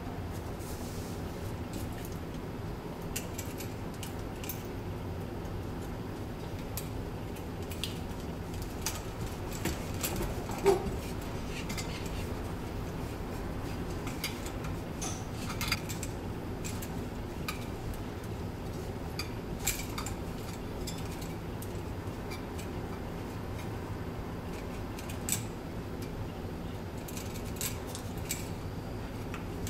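Scattered light metallic clicks and clinks of cables and fittings being handled against a metal outlet box, over a steady low hum. The loudest clink comes about ten and a half seconds in.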